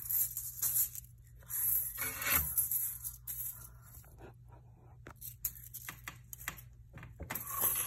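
Fidget toys being handled and put down: bursts of crinkly rustling and scraping, with scattered light clicks.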